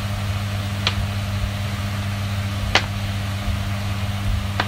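Chicken sisig frying in a pan on a gas stove: a steady hiss over a low hum, with three short sharp pops about two seconds apart.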